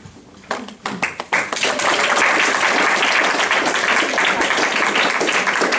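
Audience applauding: a few scattered claps about half a second in, quickly swelling into steady applause.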